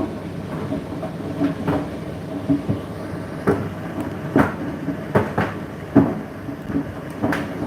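Indesit IDC8T3 condenser tumble dryer running: a steady motor and fan hum with irregular knocks, one or two a second, as the load tumbles in the turning drum.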